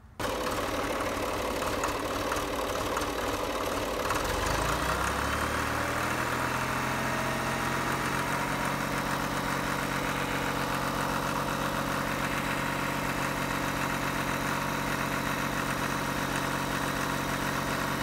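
John Deere 300B loader backhoe engine running, speeding up about four seconds in and then holding steady at the higher speed, driving the rebuilt radial hydraulic pump for a pressure check after its pressure set screw was turned in.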